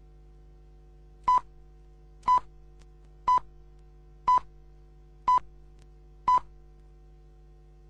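Broadcast time signal from 1980s Romanian state television: six short high pips, one a second, marking the hour as the on-screen clock reaches it, over a low steady hum from the old recording.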